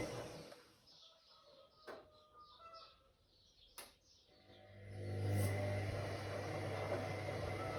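Whirlpool AWOC 8283 washing machine's motor running, then stopping within the first second. After about four seconds of near stillness, with faint chirps and two sharp clicks, it starts again with a steady low hum about five seconds in.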